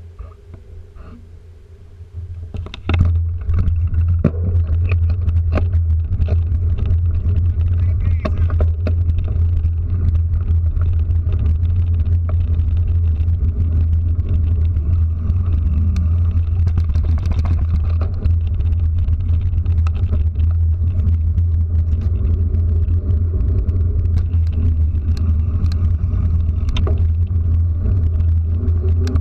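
A moving two-wheeler with a camera mounted on it: a steady low rumble sets in about three seconds in, with many small knocks and rattles over the paving stones.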